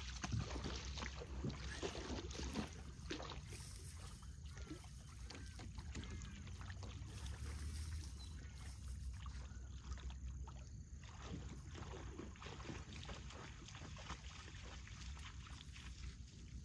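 Dry shredded-bark tinder crackling and rustling as hands work it into a bundle, over a low wind rumble on the microphone.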